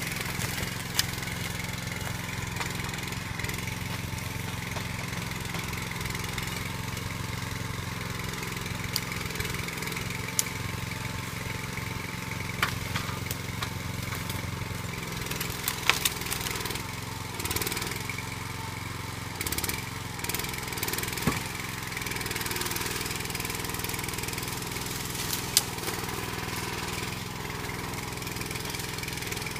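Small engine running steadily to power a Metavic log loader's hydraulic crane, its note shifting with load about halfway through as the crane works. Several sharp knocks from logs and the grapple are heard now and then.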